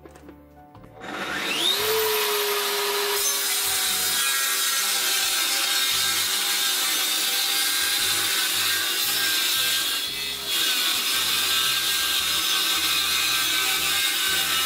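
Table saw starting up about a second in, its motor whining up to speed, then the blade ripping through an old pallet board with a steady sawing noise that dips briefly about ten seconds in.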